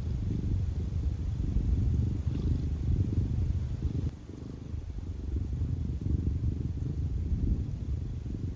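Minuet cat snoring in deep sleep: a steady low rumble, easing off briefly about four seconds in.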